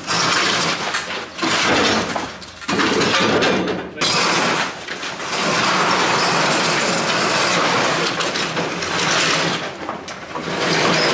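Vintage Arctic Cat snowmobile dragged by hand across a gritty shed floor: long, loud scraping and grinding of its skis and pan over dirt and debris, in a few heaves with brief pauses about three and four seconds in.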